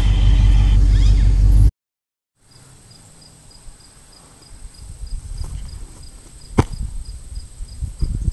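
A loud low rumble, then a brief dropout. After it, lighter wind noise with an insect chirping steadily about three or four times a second over a high, thin, steady tone, and a single sharp snap about two-thirds of the way through.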